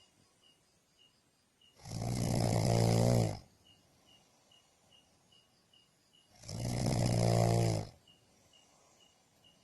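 A person snoring: two long, rough snores about four and a half seconds apart, each lasting about a second and a half. Between the snores a faint high chirp repeats about three times a second.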